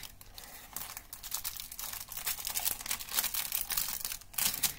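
Plastic shrink-wrap being peeled and pulled off a CD case, crinkling and crackling in irregular quick snaps, loudest near the end.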